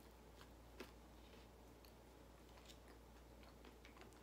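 Faint chewing of crispy fried potatoes: one sharper crunch about a second in, then scattered soft clicks of chewing.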